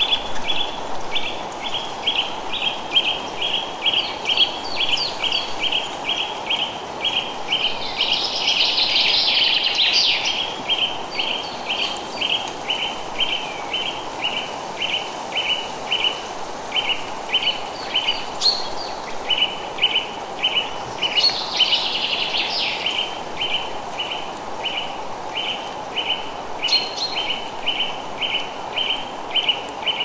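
Forest ambience: a steady run of short, high chirps, about three a second, over an even wind hiss, with two louder flurries of bird twittering, one about a third of the way in and another about two-thirds through.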